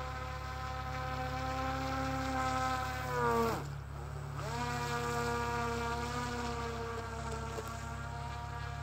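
Motor and air propeller of a handmade radio-controlled fan boat running steadily. About three seconds in, the pitch falls steeply, then about a second later climbs back up and holds steady again.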